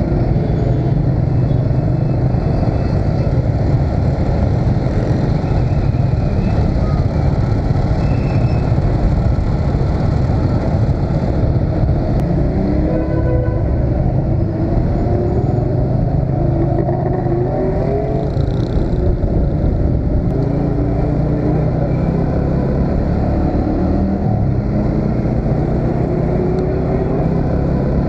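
Motorcycle riding in city traffic: its engine is running under a heavy low rumble of wind on the microphone. In the second half the engine pitch rises several times as the bike picks up speed.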